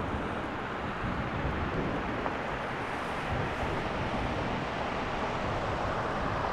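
Steady storm wind rushing through conifers and buffeting the microphone, a continuous even rush with no distinct events.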